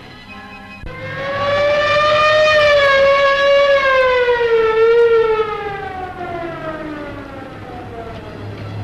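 A siren wailing: it starts about a second in, rises briefly, holds, then winds down slowly over several seconds.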